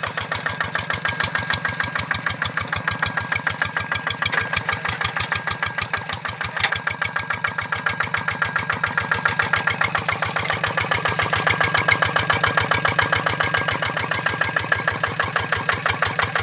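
Kubota RD85 single-cylinder diesel engine on a Quick G1000 Boxer hand tractor running steadily, an even, rapid knock of firing strokes with a thin steady whine over it that sounds like a turbo.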